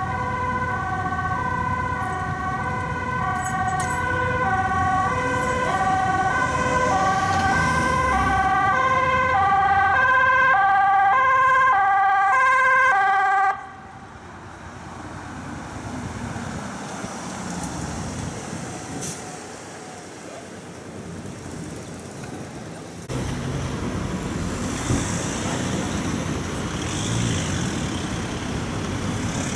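Ambulance two-tone siren, alternating between a high and a low pitch and getting louder as it approaches, cutting off suddenly about 13 seconds in. After that, steady city street and traffic noise.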